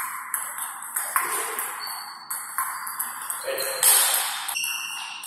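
Table tennis ball clicking off the rackets and the table in a rally, a sharp tick every third to half second, with a few short high squeaks in the second half.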